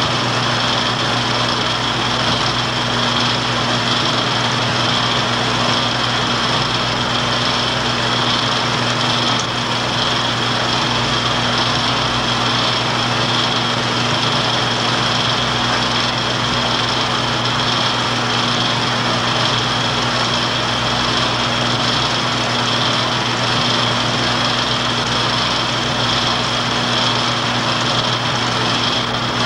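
Film projector running: a steady mechanical whir with a low hum and a high whine from the motor and film transport, unchanging throughout.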